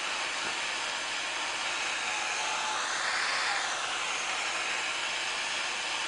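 Handheld propane torch flame hissing steadily, swelling slightly about halfway through, as it heats the reservoir of an oxalic acid vaporizer pipe to melt the acid.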